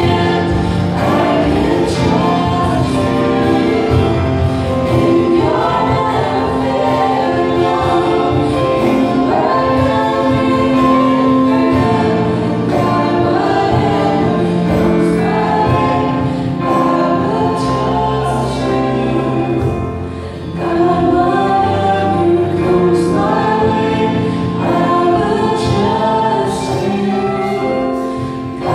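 Live Christian worship song sung by a man and two women into microphones, accompanied by acoustic guitar.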